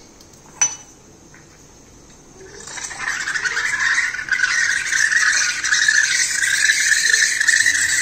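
A sharp click, then steam hissing loudly and steadily from the Morphy Richards coffee maker, starting about two and a half seconds in, once the water is heated.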